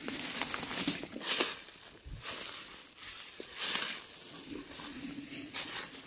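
Footsteps rustling and crunching through dry fallen leaves and withered grass, in several irregular bursts.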